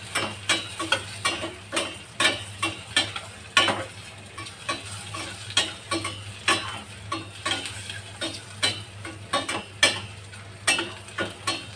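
Metal spatula scraping and knocking against a stainless steel pot as onions and mushrooms are stirred while frying in a little oil, in irregular strokes about twice a second over a light sizzle. A steady low hum runs underneath.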